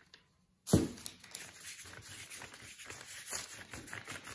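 A hand spreading white glue over a large sheet of paper: after a moment of silence, a sudden thump about a second in, then the palm rubbing and smearing across the wet, glue-coated paper.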